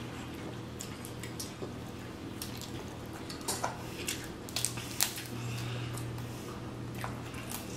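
Wet eating sounds: smacking and sucking on sauce-covered crab boil, with scattered sharp clicks over a steady low hum.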